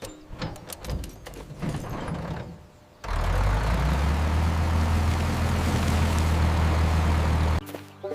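A run of clicks and knocks, then about three seconds in an engine starts running loud and steady with a deep hum, cutting off suddenly near the end.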